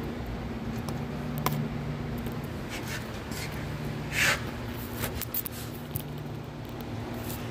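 Scattered light clicks and one short scrape about four seconds in, over a steady low hum.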